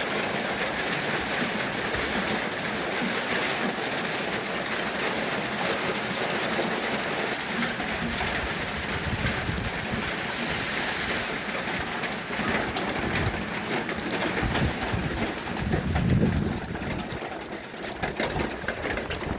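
Steady hissing noise, with uneven low rumbling in the second half and a louder swell about three quarters of the way through.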